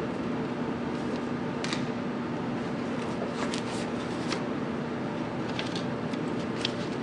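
A steady low hum, with a few light clicks and taps as a paperback book is handled and laid on a self-checkout station's pad.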